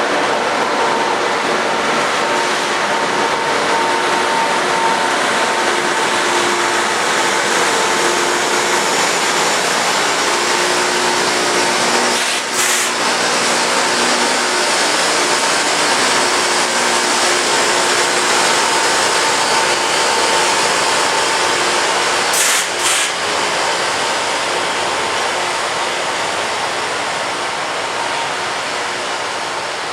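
Loram rail grinding train grinding the rail: a loud, steady grinding hiss from the grinding stones on the rail, with the train's engines running underneath. The hiss dips briefly twice, about twelve and twenty-two seconds in, and eases slightly near the end.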